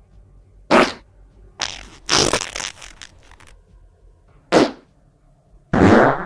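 A run of separate fart sounds: a short one just under a second in, then a longer sputtering one broken into several quick pulses, a short one about four and a half seconds in, and another starting near the end.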